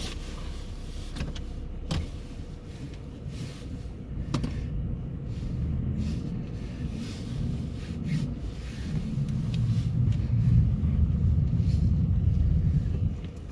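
Car running as it moves off on snowy roads, heard from inside the cabin: a low engine and tyre rumble that grows louder about nine seconds in, with a few light knocks.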